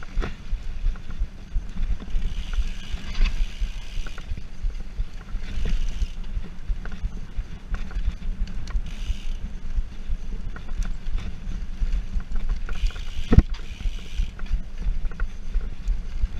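Mountain bike ridden fast over a bumpy dirt trail: a constant low rattle of the bike and tyres on the dirt with many small clicks, wind on the microphone, and one sharp knock a little past thirteen seconds in as it hits a bump.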